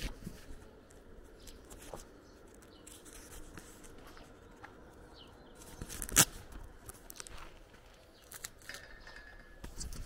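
Footsteps on a gravel path, with scattered light clicks and crunches and one sharp, much louder click about six seconds in.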